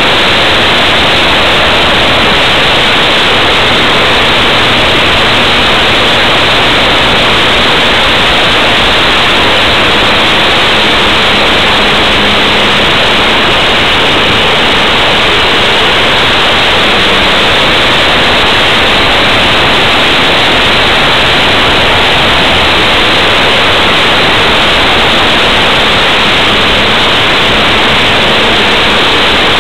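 Loud, even rush of wind over a wing-mounted camera on a radio-controlled Yak 54 model aircraft in flight, with the model's engine and propeller as a faint steady drone underneath.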